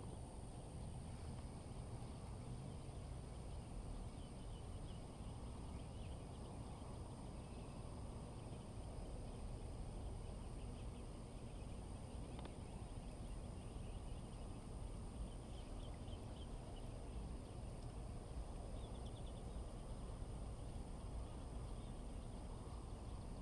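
Quiet outdoor ambience by a pond: a steady low rumble, a faint steady high hiss, and a few faint chirps now and then.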